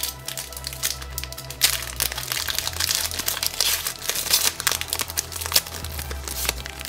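Foil wrapper of a basketball trading-card pack crinkling and crackling in a dense run of small cracks as it is handled and torn open.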